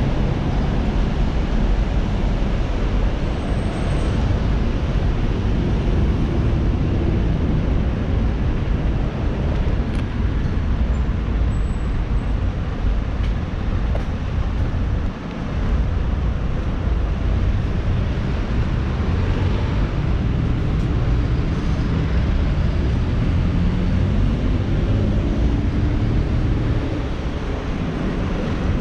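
Steady road traffic noise from a busy multi-lane road, with a vehicle's engine note rising in pitch in the last several seconds.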